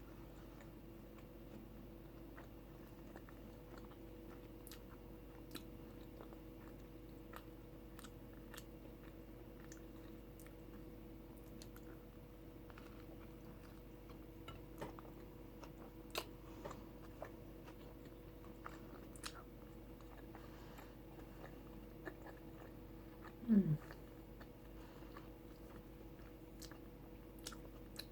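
Close-up chewing and biting of soft chicken tacos, with scattered small wet mouth clicks, over a steady faint hum. About 23 seconds in comes one short falling 'mm' from the eater.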